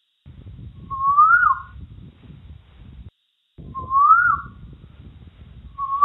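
Asian koel calling: a rising whistled note, given about a second in and again about four seconds in, with the next starting at the very end. A low background rumble runs under the calls.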